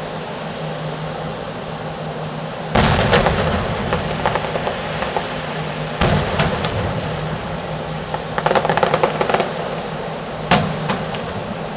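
Distant aerial fireworks shells bursting: a heavy boom about three seconds in, another at about six seconds, a quick run of crackling pops around eight to nine seconds, and a last boom near the end.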